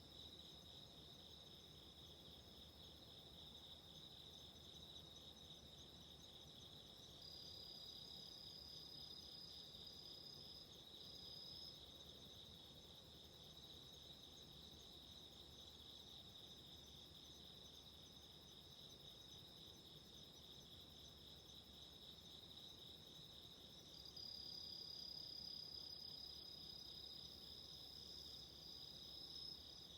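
Faint chorus of autumn insects chirping: a dense, steady pulsing trill, with a second, higher insect's unbroken trill joining about seven seconds in and again from about twenty-four seconds.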